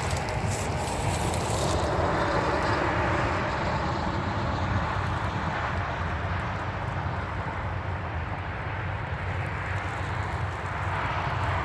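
Highway traffic passing: tyre and engine noise swells for several seconds and fades again, over a steady low rumble.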